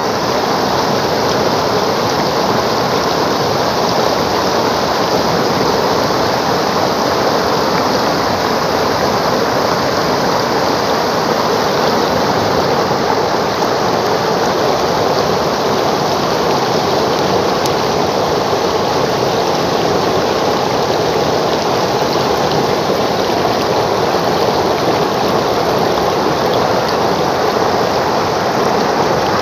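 Muddy floodwater rushing over a low weir and churning in the turbulent stretch below it: a loud, steady rushing that never lets up.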